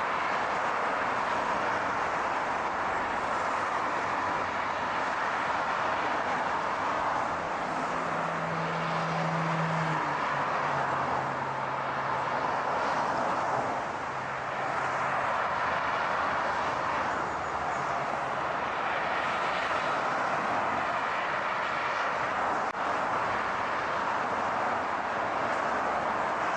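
Steady road and tyre noise of a car driving, an even rushing sound. A low hum comes in about a quarter of the way through, drops lower a few seconds later and fades out past the middle.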